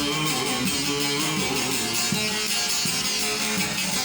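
Turkish folk song from Kayseri: a held sung note ends about a second and a half in, and a plucked string instrument plays on with repeated notes.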